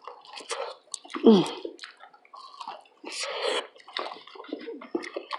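Close-miked mukbang eating sounds: wet chewing, lip smacks and slurps, with many small clicks. About a second in there is one louder short sound that falls in pitch.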